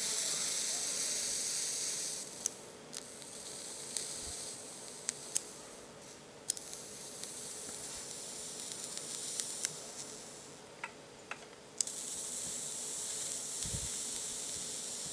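Bare rebuildable-atomizer coil dry-fired on a mechanical mod, hissing and sizzling with scattered small crackles as it heats to a red glow and burns off residue. The hiss is strongest at the start and again in the last few seconds.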